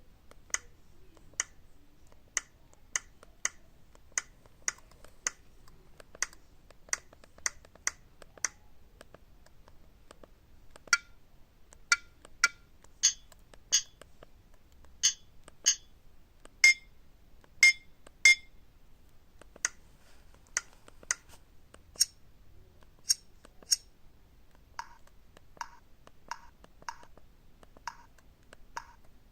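Alcatel OT-1016D mobile phone keypad tones: a long series of short, sharp beeps, about one or two a second, one per key press. They come in several groups that change in pitch, the loudest group in the middle.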